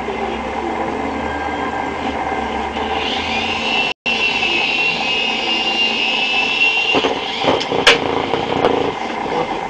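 Small toy RC helicopter's electric motors and rotors whirring steadily, the high whine drifting up and down in pitch as the throttle changes. The sound cuts out briefly about four seconds in, and a few sharp clicks come near the end.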